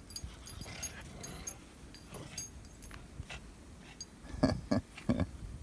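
Wind rumbling on the microphone in a snowstorm, with a dog giving three short yips near the end.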